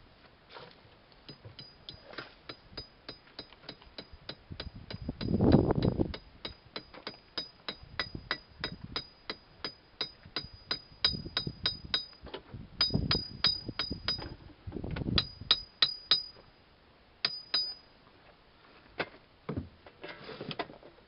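Rhythmic metallic clicking, about three to four clicks a second, each with a short bright ring, from metal vise parts or a tool being worked during vise assembly; it stops about three-quarters of the way through, and dull handling bumps come in between.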